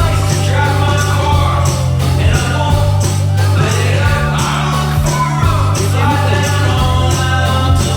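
Background music: a pop song with a steady beat and a bending vocal-like line, possibly an instrumental break since no lyrics were transcribed.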